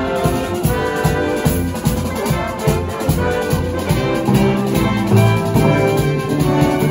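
Music with a steady drum beat under a melody of held notes.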